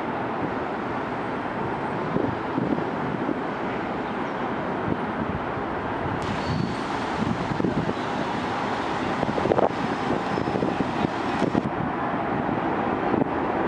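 City street traffic noise at a busy intersection: a steady din of passing cars, with a bus going by close near the end.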